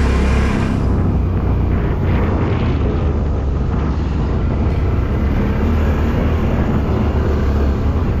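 Engines of many quads and off-road motorbikes running together as a steady low rumble.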